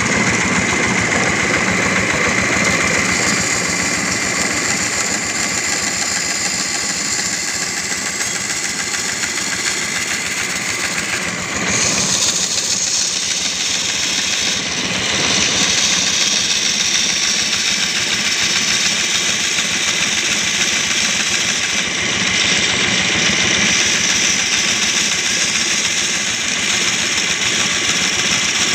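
Homemade wooden-framed bandsaw running steadily, its blade cutting a curved line through a wooden door-panel board. The sound dips briefly and changes about twelve seconds in.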